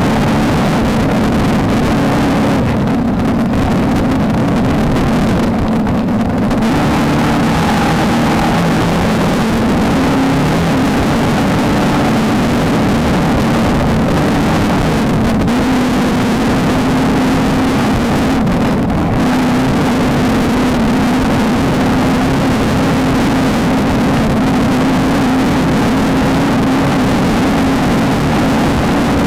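Off-road race vehicle's engine running hard at fairly steady high revs, under a constant loud rush of noise; the noise eases briefly a few times.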